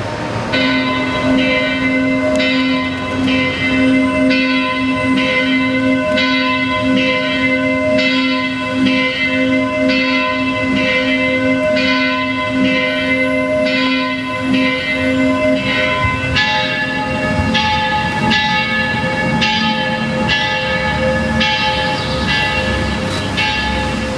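Music: a held drone chord under bell-like tones pulsing about three times every two seconds. About two-thirds of the way in, the chord moves to a higher pitch.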